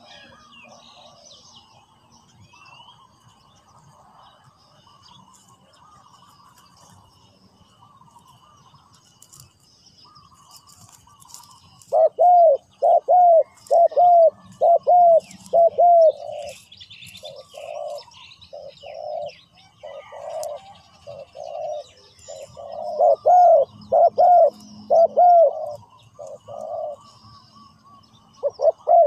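Spotted dove cooing close by as a calling decoy: a quick run of short, loud coos starting about twelve seconds in, softer for a few seconds, then loud again. Faint chirping of other birds underneath.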